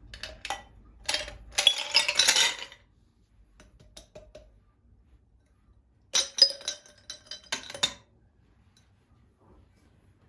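Glass and dishware clinking and being set down in two short bursts, one near the start and another about six seconds in.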